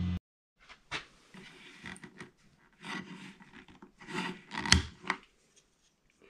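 A 3D-printed PLA part being worked loose and lifted off a 3D printer's build plate by hand: irregular scraping and rubbing with a few sharp clicks, the loudest a little under five seconds in.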